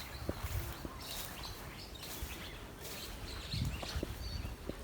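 Birds chirping in short, scattered calls over a steady low outdoor rumble that swells briefly near the end.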